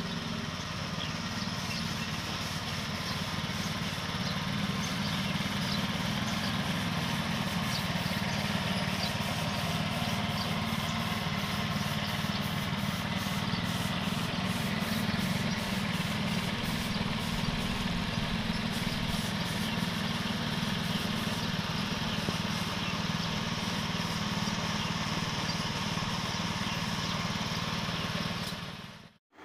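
Heavy diesel engine idling steadily, a low even drone that fades out near the end.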